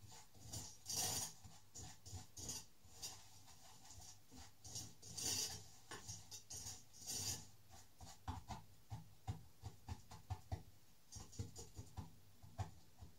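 Wooden spoon stirring and scraping caramelizing sugar in a metal saucepan: short scraping strokes at an irregular pace, a few of them louder.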